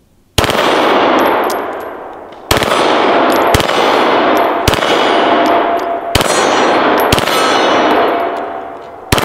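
Full-auto Glock 17 9mm pistol fired in about seven short bursts, roughly one a second, each cracking out and echoing away, with hits ringing on steel targets.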